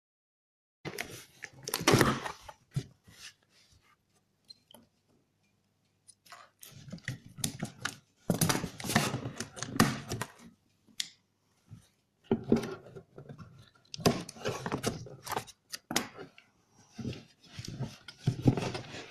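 Cardboard shipping carton being handled and opened: its flaps and the laptop box inside scrape and rustle in irregular bursts, with a pause of a few seconds about a quarter of the way in.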